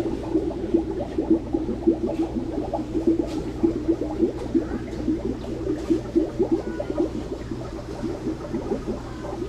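Aquarium water bubbling and gurgling steadily in a dense, even patter, over a constant low hum from the tank's pump.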